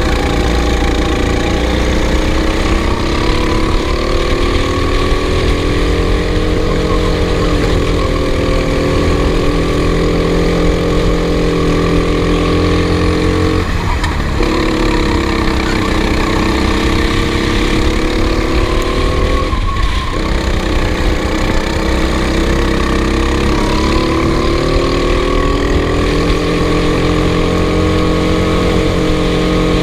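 Racing kart engine running hard, its pitch rising and falling again and again through the lap, with two brief dips where the engine note drops out for a moment, about halfway and two thirds of the way through.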